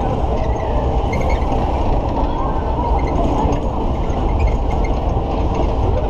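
Matterhorn fairground ride running at speed, heard from inside a car: a steady, loud rumble of the cars travelling round the undulating track.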